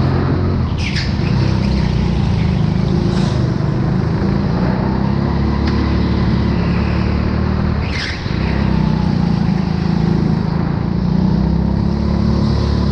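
Go-kart engine running steadily at speed, heard close from the kart itself, its pitch shifting a little through the corners. Three short high-pitched squeals come about one, three and eight seconds in.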